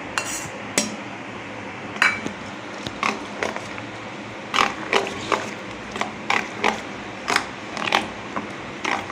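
A spoon scraping and tapping against a bowl as curd and semolina batter are spooned in and stirred: irregular short scrapes and clicks, several a second at times.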